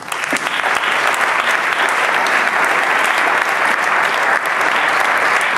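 Theatre audience applauding: dense clapping from a full auditorium that breaks out suddenly and holds steady.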